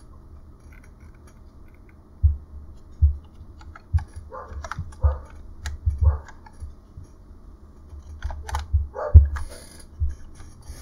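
Irregular keystrokes on a computer keyboard: about a dozen separate key clicks, each with a dull thud, as screen key shortcuts are typed.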